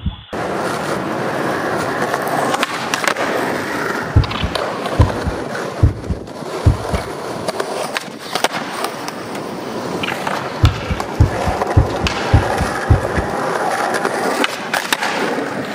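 Skateboard wheels rolling over rough concrete with a steady grinding rattle. Evenly spaced low knocks come in two runs, one about four seconds in and one from about ten and a half seconds, with a few sharp clicks in between.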